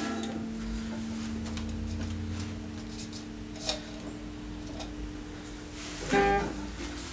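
Electric guitar chord left ringing and slowly fading, with a new chord strummed about six seconds in.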